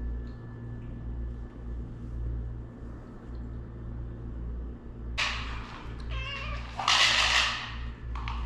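A domestic cat meowing twice over a steady low hum, the first call about five seconds in and the second, louder one right after it.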